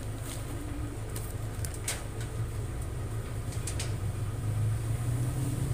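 A steady low rumble, with a few short rustles and clicks of a paper sheet being handled.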